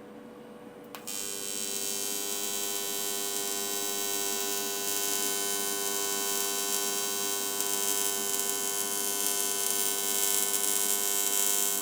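AC TIG welding arc on aluminum from a Miller Dynasty 210 at 120 amps with straight argon, struck with a click about a second in, then a steady buzzing hum with hiss that slowly grows louder. The arc is running on cold, unpreheated quarter-inch aluminum, where it struggles to build heat.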